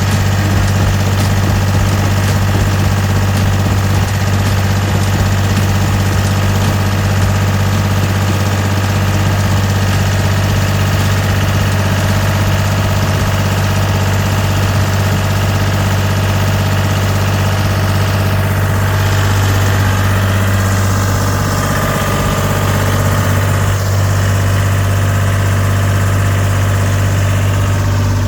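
Deutz diesel engine of a Gehl 4640 skid steer running steadily at one speed, with no change in pitch or level.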